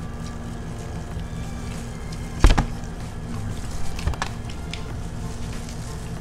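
Eating and handling of chicken wings with plastic-gloved hands at a table: a sharp knock about two and a half seconds in, then a few smaller clicks and crinkles around four seconds in, over a steady low hum.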